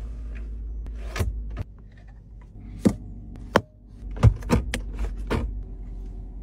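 A string of sharp clicks and knocks as a Bentley's cabin switches and chrome fittings are pressed and worked, over a low steady hum.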